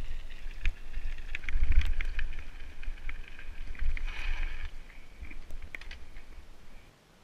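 Mountain bike rolling fast down a loose gravel trail: tyres crunching over stones, with irregular clicks and rattles from the bike and a low wind rumble on the microphone. The sound cuts off sharply near the end.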